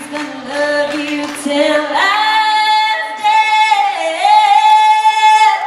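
A woman singing a country song into a handheld microphone, amplified, holding two long notes in the second half.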